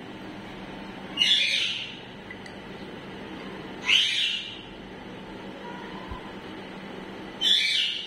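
Green parakeet bathing in a glass of water, with three short, loud bursts of sound about two and a half seconds apart.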